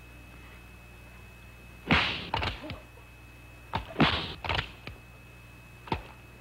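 Exaggerated film sound effects of quick slaps and whacks: three rapid clusters of sharp smacks, about two seconds apart, over a faint steady soundtrack hum.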